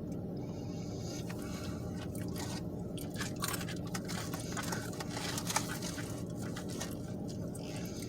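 Close-up chewing of food with crisp, crunchy bites and wet mouth sounds. It starts about a second in as an irregular string of crunches, with the sharpest crunch about five and a half seconds in.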